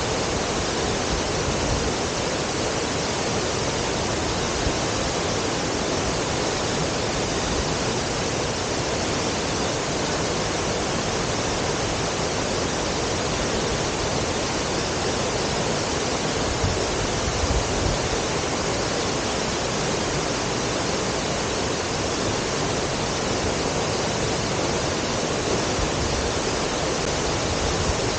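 Tall waterfall, about a 106 m drop, crashing down in a steady, loud, even rush of water.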